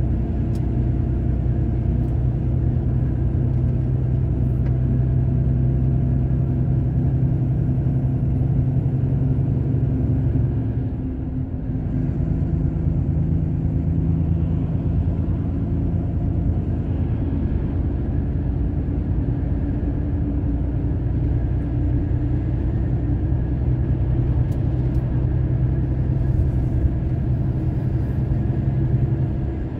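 Diesel truck engine running under way, heard from inside the cab as a steady low drone. About eleven seconds in the sound dips briefly and the engine note comes back higher.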